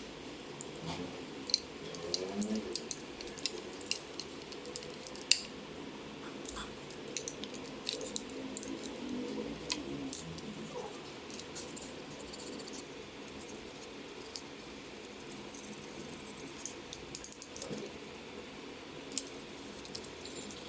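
Small metal parts and tools clicking and clinking as they are handled, in irregular light clicks over a low steady hum.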